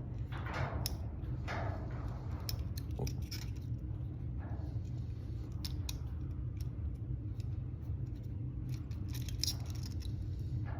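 Light metallic clicks and rattles of steel handcuffs and a lock pick being worked in a handcuff keyway, over a steady low rumble.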